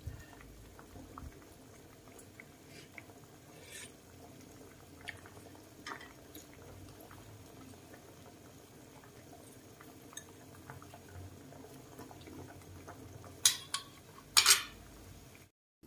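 Pot of curry broth simmering on a gas burner: faint steady bubbling with small scattered pops. A few sharp metal clinks near the end.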